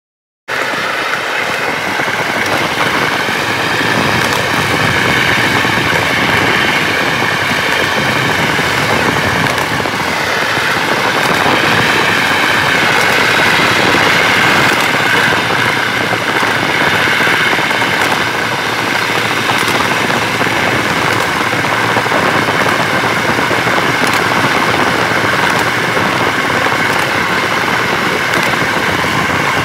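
Motorized rail skate, a small engine-driven rail trolley, running along the track: a loud, steady engine note that wavers slightly in pitch over a dense rumble, cutting in abruptly about half a second in.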